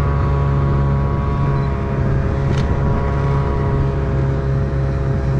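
A motor engine running at a steady, unchanging speed.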